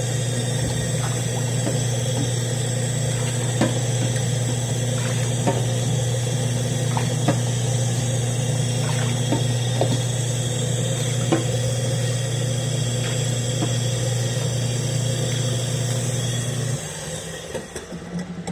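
A plastic cup scooping backed-up water out of a clogged stainless steel kitchen sink, with short clicks of the cup against the steel every second or two. Over this runs a loud, steady low hum that cuts off about two seconds before the end.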